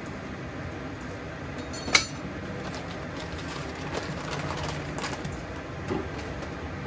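Kitchenware clinking: one sharp clink about two seconds in, then a few softer knocks, over a steady low hum.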